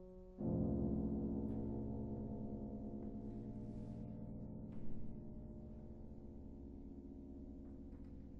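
Piano playing a deep, soft bass chord about half a second in, left to ring under the sustain pedal and slowly dying away, with a short tap about five seconds in.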